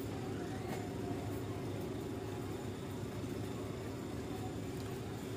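A steady low background rumble with a few faint clicks.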